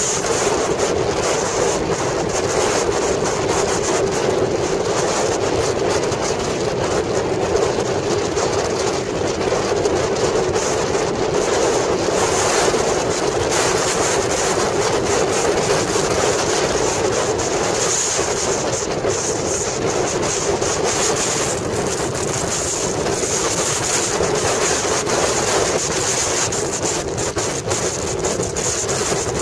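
A motorcycle riding at highway speed: steady wind and road noise, with wind buffeting the microphone.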